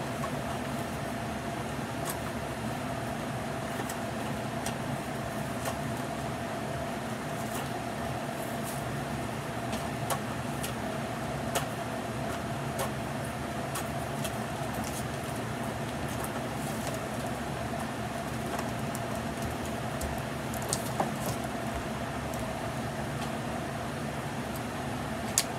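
Scattered small clicks and taps of batteries and a plastic battery compartment being handled as batteries are worked into a toy. They sit over a steady room hum with a faint constant tone.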